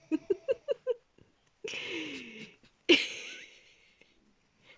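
Capuchin monkey laughing while being tickled: a quick run of short, pitched, breathy pulses, about five a second, then two louder breathy bursts, the first falling in pitch.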